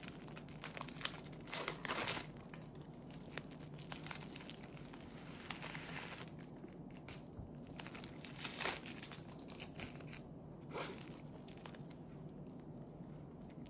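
Plastic film wrapper of a convenience-store onigiri crinkling and tearing as it is pulled open by its tear tab and peeled off the rice ball. The rustling comes in irregular spurts, loudest about two seconds in and again near nine seconds.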